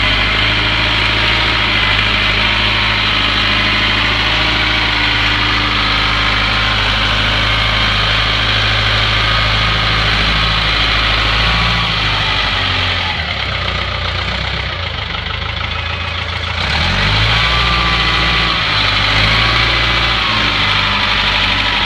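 Caterpillar motor grader's diesel engine idling steadily. About halfway through, the engine note drops and softens for several seconds, then comes back up.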